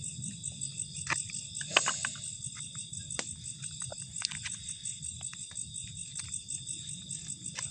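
Crickets and other insects chirring steadily in a high, pulsing chorus, with a few short clicks and knocks scattered through it.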